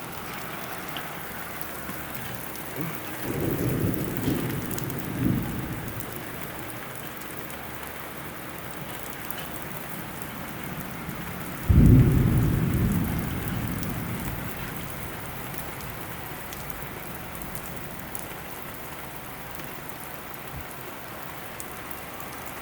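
Thunderstorm: steady hard rain with thunder. A rolling rumble comes about three seconds in, then a sudden, louder clap about twelve seconds in that rumbles away over several seconds.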